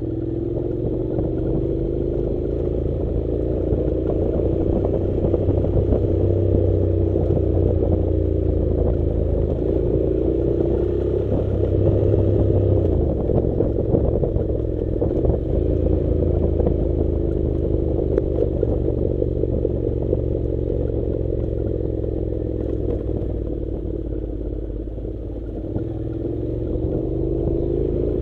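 Honda NC700 motorcycle's parallel-twin engine running at low revs on a stony dirt track, its pitch rising and falling several times with the throttle. Rattling and clatter over the loose stones run throughout.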